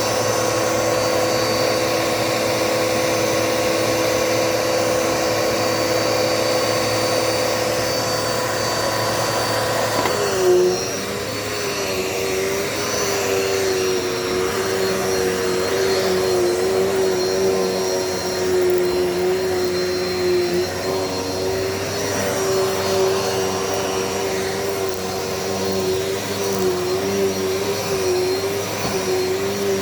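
Dirt Devil Multi-Surface vacuum cleaner running steadily. About ten seconds in there is a brief knock, and the motor's tone shifts lower and then wavers slightly as it carries on.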